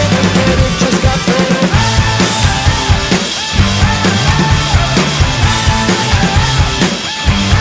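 Rock music with a steady drum beat and bass.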